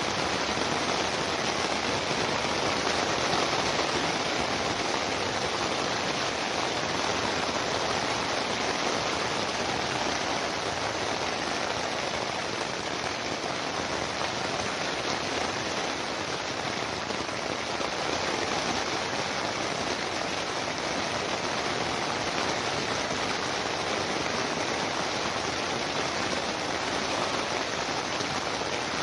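Steady, even rainfall: a continuous rain-on-surface hiss with no breaks or changes, used as white noise for sleep.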